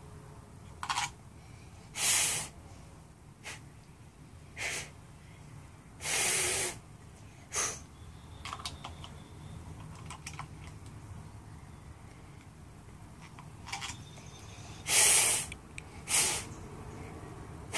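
A young child blowing through a plastic bubble wand: about nine separate puffs of breath, some short and some lasting most of a second, with a long pause between them in the middle.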